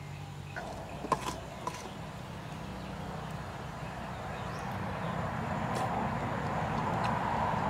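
A metal spoon clinks against a stainless steel bowl a few times as rice is scooped up, over a steady low hum that slowly grows louder.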